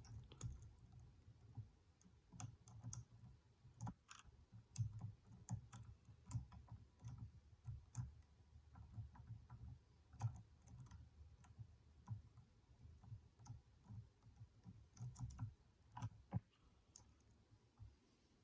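Lock pick working the pins of a Stanley padlock: faint, irregular small clicks and ticks over low handling rumble.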